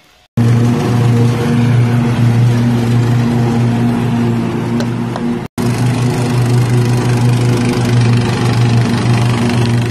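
Ride-on lawn mower engine running steadily while mowing, with a strong low hum. It cuts in abruptly just after the start and drops out for an instant about five and a half seconds in.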